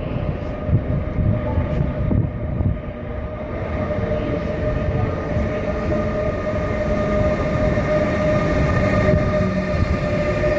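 Passenger train running: a steady rumble from the wheels and running gear with a constant whine above it.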